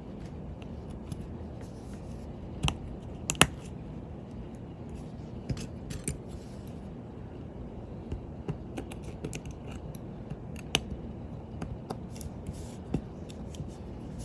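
Small, irregular clicks and taps of a watch movement being seated in its case, metal and plastic parts and tools knocking lightly together, a few sharper clicks among them, over a steady low background hum.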